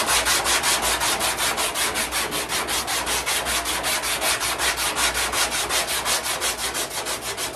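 Hand block-sanding of thin body filler on a car's door and quarter-panel seam with 80-grit sandpaper: quick, even back-and-forth rasping strokes, about six a second. The paper is cutting quickly.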